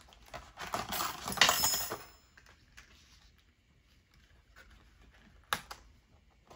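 Die-cut glitter paper and a thin metal die handled on a metal base plate: a rustling, clicking flurry for about the first two seconds, then a few light ticks and one sharp click near the end.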